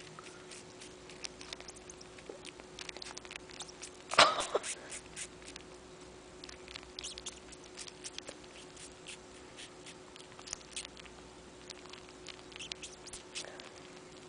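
Young kitten, about four weeks old, suckling on bare skin: soft, irregular wet sucking and smacking clicks, with one louder, brief noise about four seconds in.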